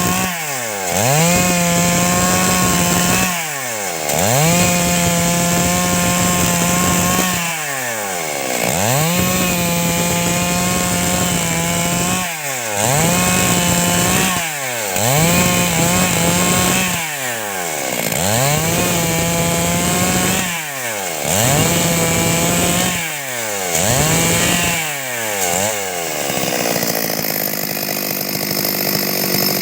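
Stihl MS 382 two-stroke chainsaw cutting wood at high revs, its engine note dropping sharply and climbing back up again and again, about every two seconds, before running on steadily near the end.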